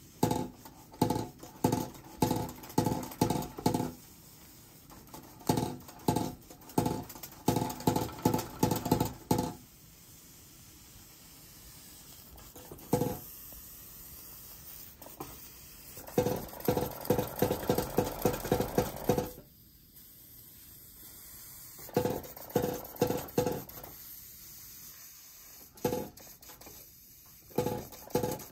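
Belt-driven Märklin Metallbaukasten toy hammer worked by a vintage Märklin 4135 toy steam engine, striking over and over with short ringing metallic clanks. The clanks come in runs of a few seconds, about two a second and quicker in the middle run, with pauses between them where a soft steady hiss remains.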